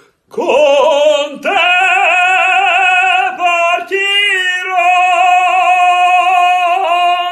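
A man singing in an operatic style: loud, long held notes with vibrato, broken by short breaths about a second in and again near the four-second mark.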